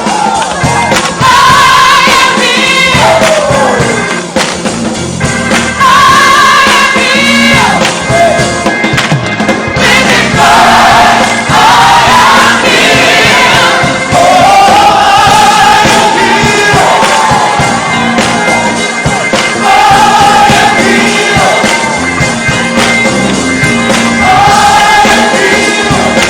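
Church choir singing a gospel praise song, in held, sliding sung phrases with music behind them.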